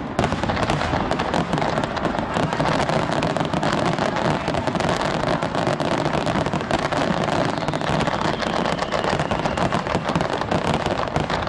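Fireworks going off in a dense, continuous barrage of crackles and bangs.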